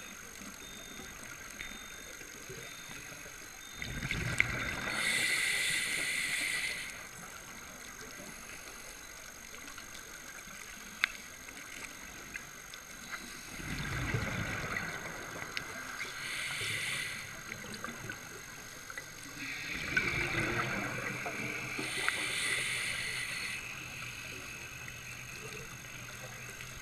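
A scuba diver breathing through a regulator underwater: three slow breath cycles, each a low bubbling rush followed by a hissing draw of air. Faint clicks sound between the breaths.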